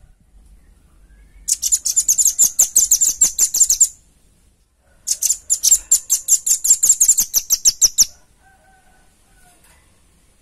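Velvet-fronted nuthatch calling: two rapid trills of sharp, high-pitched repeated notes, each lasting about two and a half to three seconds, with a short pause between them.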